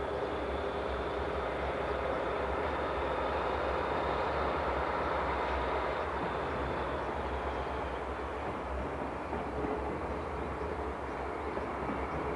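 A train running on the rails: a steady rumble with a high thin tone that fades out about halfway through, and a few sharp wheel clicks near the end.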